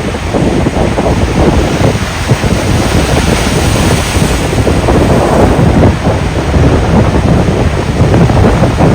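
Strong wind buffeting the microphone with a heavy, churning rumble, over ocean surf from wind-driven waves and swell. A wave's hissing wash swells up about midway.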